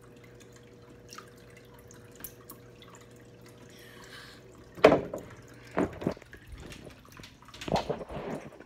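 Water dripping and trickling steadily, with a low steady hum. About five seconds in comes a sharp loud knock, then a couple of bumps and a rustling clatter as the phone is handled.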